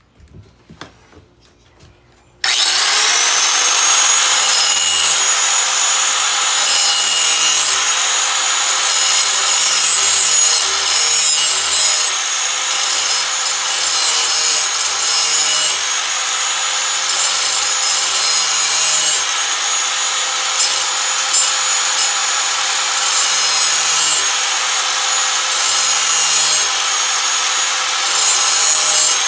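A few light clicks, then, about two seconds in, an angle grinder spins up and grinds steadily on the steel edge of a lawn mower blade held in a vise. It is putting an edge back on a badly worn blade.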